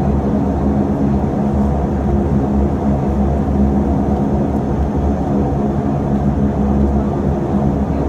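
A Saab 340B's General Electric CT7 turboprop engines and propellers running at taxi power, heard inside the cabin: a steady low drone with several even humming tones, unchanging throughout.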